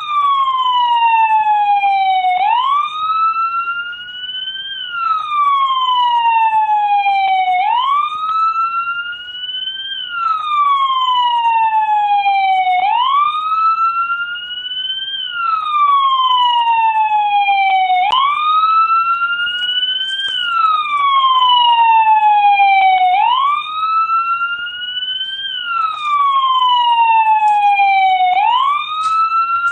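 American police car siren on its wail setting. Its pitch slides slowly down, snaps back up and climbs again, about once every five seconds, with a fainter second sweep running out of step with it.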